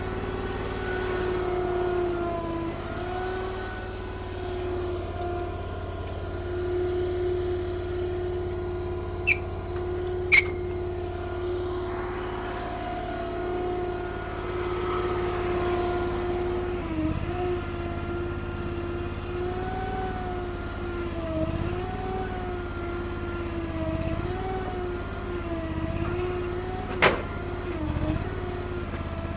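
Honda gasoline engine of a Derette DRT450 mini skid steer running at steady speed, its pitch then dipping and recovering repeatedly through the second half as the machine works. Two sharp, loud clicks come about a second apart near the middle, and another comes near the end.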